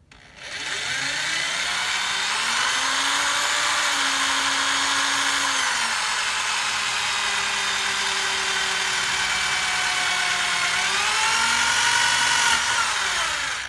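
Electric drill boring small pilot holes through a thermostat. The motor spins up to a steady whine, its pitch shifts a few times as the bit bites, and it winds down near the end.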